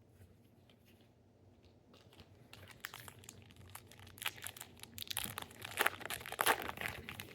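A baseball card pack's wrapper being crinkled and torn open: a run of irregular crackles that starts about two and a half seconds in and grows louder.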